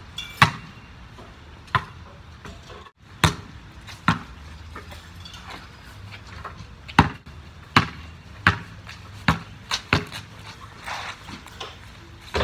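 Basketball bouncing on the ground and hitting the backboard and rim during shots. About a dozen sharp thuds come at uneven intervals.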